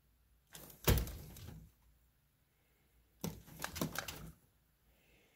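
Two short bursts of clicks and dull knocks, each about a second long, roughly two and a half seconds apart.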